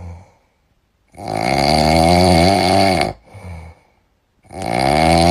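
Loud, drawn-out snoring: two long snores, each about two seconds, with a softer breath between them.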